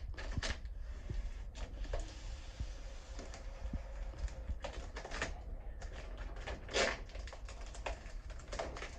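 Protective plastic film being peeled and crinkled off a pinball mirror blade: irregular light clicks and rustles, with one louder rustle about seven seconds in.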